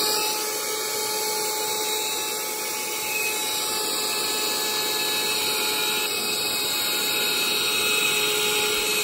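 Craftsman vacuum running steadily with a constant whine, its nozzle drawing up loose crumbs of sanded foam board.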